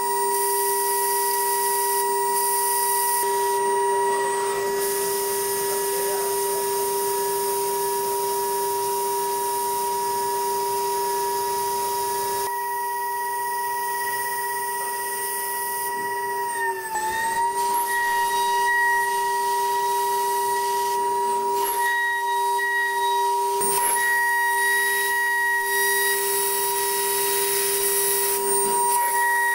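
2.0 kW high-frequency spindle of a DATRON M8Cube CNC milling machine whining at a steady high pitch while a small cutter engraves and mills an aluminium panel, with a high hiss over it. The pitch dips briefly and recovers a little past halfway.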